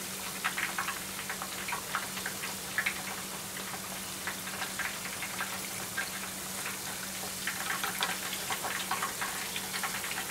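Coated karaage chicken pieces deep-frying in a pot of hot oil: a steady sizzle with irregular crackling pops. The oil has been turned up to crisp the coating at the end of frying.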